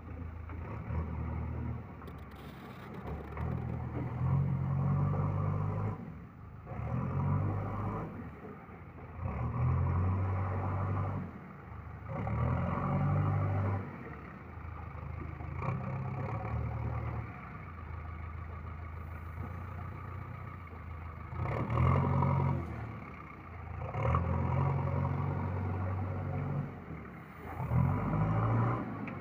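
JCB 3DX backhoe loader's diesel engine revving up and settling back again and again, in swells a few seconds apart, as the machine works and manoeuvres.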